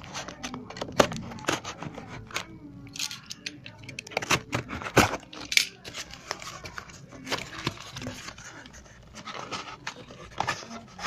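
Cardboard shipping box being torn and pried open by hand: irregular sharp rips, crackles and rustles of cardboard, with the loudest rips about a second in and again around four to five seconds.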